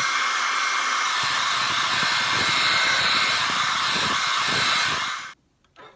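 Hair dryer running steadily, an even rushing blow of air with a faint whine, used to warm and soften the adhesive holding an iPad 2's glass digitizer; it cuts off suddenly about five seconds in.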